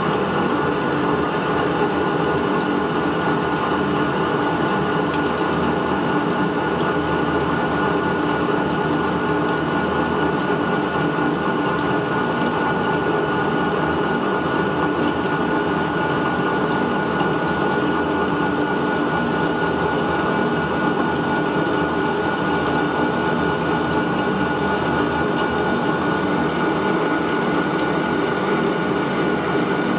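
CNC lathe turning a metal bar under flood coolant: the spindle and drives run steadily with a held whine, over the hiss of coolant spray and the tool cutting.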